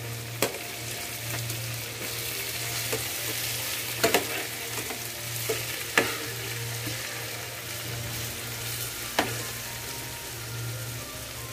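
Marinated chicken pieces sizzling in hot oil in a non-stick frying pan while a metal spoon scrapes and knocks against the pan, turning over pieces whose first side has browned. There are a few sharp clicks, the loudest about six seconds in, over a steady low hum.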